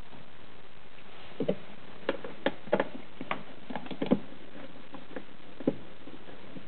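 Irregular light clicks and taps of a Torx screwdriver working out the screws that hold a small factory speaker in a Jeep Wrangler JL's plastic overhead soundbar. The clicks cluster between about one and a half and four seconds in, with a last one near six seconds.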